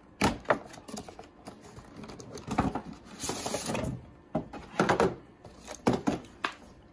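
Cardboard and plastic toy packaging being handled: sharp taps and crinkles as the box flap is opened, and a longer scraping slide about three seconds in as the inner cardboard tray is pulled out of the outer box.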